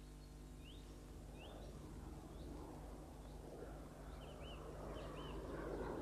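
Birds chirping: a few short rising chirps, then from about four seconds in, repeated pairs of arching calls, over a faint outdoor background noise that grows louder toward the end.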